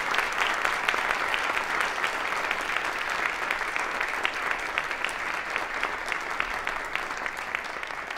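Audience applauding, a dense patter of many hands clapping that slowly tapers off.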